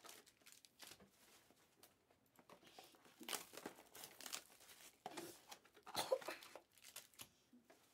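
Foil wrappers of Panini Select Hybrid basketball card packs crinkling and tearing as the packs are ripped open, in scattered bursts, the loudest about six seconds in.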